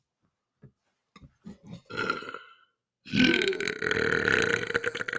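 A man's long, loud belch, "chunky", starting about three seconds in and holding a steady pitch for over two seconds. Before it come a few faint clicks and a short throaty sound about two seconds in.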